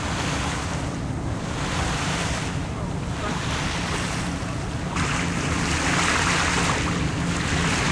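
Water rushing and splashing along the hull of a sailing yacht under way, with wind buffeting the microphone and a low steady hum underneath. The rush swells and ebbs, and grows louder about five seconds in as the bow wave comes close.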